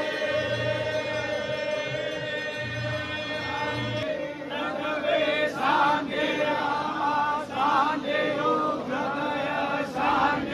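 Devotees singing a Hindu aarti chant together in chorus. For the first four seconds a steady held tone sounds under the voices.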